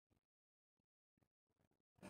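Near silence: the sound track is all but empty.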